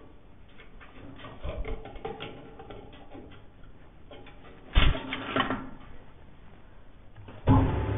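Wood lathe's metal tool rest being loosened and raised with a spanner: a run of small metallic clicks and rattles, then two loud clanks about five seconds in. Near the end the lathe motor switches on and runs with a steady hum.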